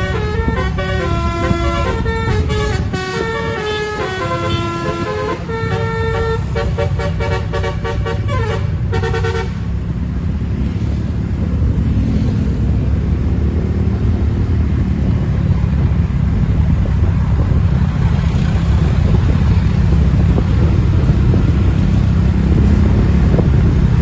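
Satria Jaya bus's basuri telolet horn playing a tune of stepping multi-tone horn notes for about nine seconds, then falling silent. A low vehicle engine rumble follows and grows louder.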